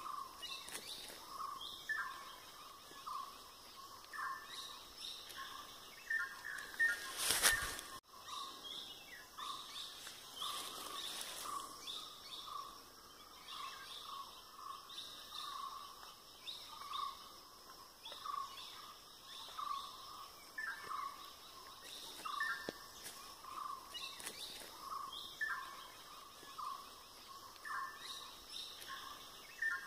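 Wild birds calling in the open, one repeating short notes about once a second while others add higher chirps. About a quarter of the way in there is a brief loud burst of noise, then the sound cuts off abruptly and resumes.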